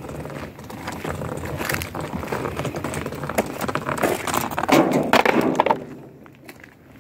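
Scraping and clattering of a white tubular pipe frame moved over dry, gritty ground, mixed with footsteps on the dirt. It is loudest about five seconds in and dies down near the end.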